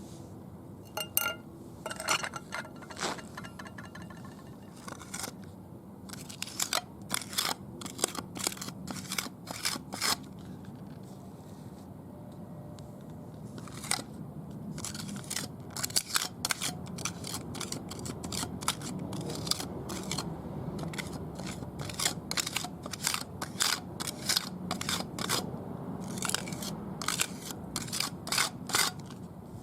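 A flat-bladed hand tool scraping on concrete as patching compound is worked into a crack: clusters of quick, short scrapes separated by pauses.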